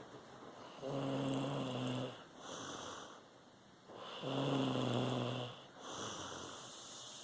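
Deep snoring in a sleeper's breathing rhythm: two long, low-pitched snores about three seconds apart, each followed by a softer, hissy breath.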